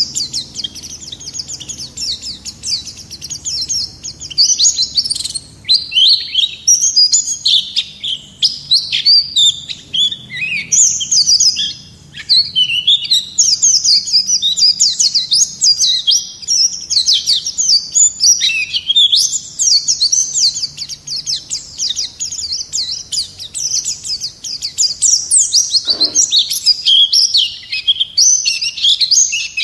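White-eye (pleci) singing a fast, nearly unbroken twittering song of quick, high notes that sweep up and down.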